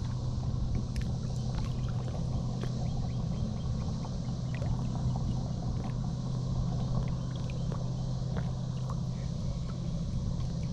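Steady low hum of a running motor, holding an even pitch throughout, with scattered faint clicks and ticks over it.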